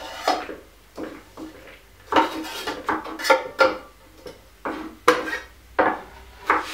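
Kitchen knives chopping on wooden cutting boards, with utensils knocking and scraping against a mixing bowl: irregular knocks and clinks, several a second.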